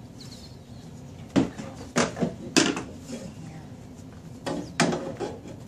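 Sharp metal clanks and knocks from hand work on a car's front suspension, the steering knuckle and hub assembly being handled and fitted: about five knocks, three in the first half and two close together near the end.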